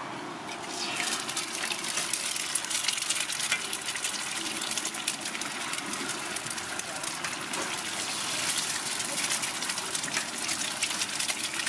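Eggs frying on a large flat griddle: a dense crackling sizzle that swells about a second in as the eggs hit the hot metal.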